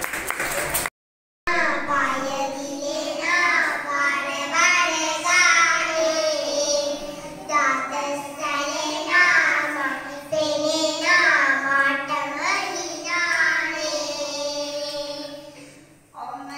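Young children singing a song together in phrases over a steady held backing note, after a short dropout about a second in; the singing fades near the end.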